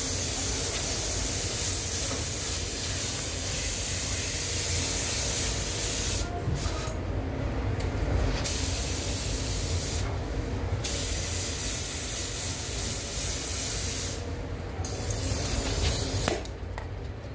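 Anest Iwata LPH-80 spray gun hissing as it sprays clear coat, the hiss breaking off briefly several times as the trigger is released between passes. A low steady rumble runs underneath.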